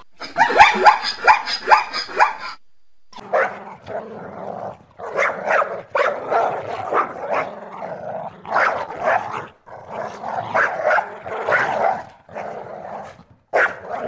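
A zebra calling with a run of quavering, pitch-sliding notes for about two and a half seconds. After a short pause, a puppy barks and growls in a long string of short bursts.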